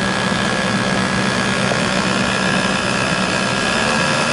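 Commercial immersion blender motor running steadily with its shaft in a pot of thick puréed soup, a constant hum and whine.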